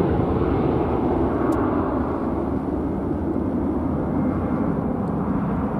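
The two Rolls-Royce BR710 turbofans of a Gulfstream G550 business jet climbing away after takeoff. They make a steady low rumble that slowly fades as the jet departs.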